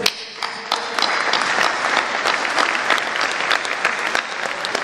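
Audience applauding, many hands clapping with single sharp claps standing out; it builds up within the first second.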